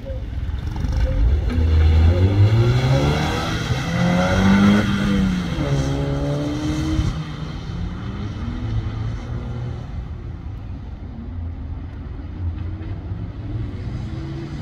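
Mazda MX-5 roadster's four-cylinder engine revving: its pitch climbs for several seconds and drops sharply as the car slides through a wet turn, rises and falls again briefly, then settles to a lower, steadier note as the car pulls away.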